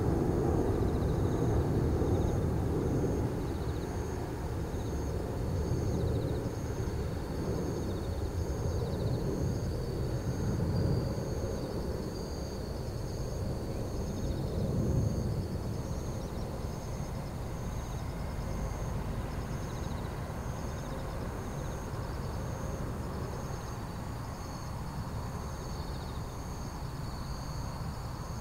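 An Airbus A380-861's four Engine Alliance GP7200 turbofans rumble as the airliner passes overhead on final approach, the jet noise fading steadily as it flies away. Insects chirp above it in a steady rhythm of about one pulse a second.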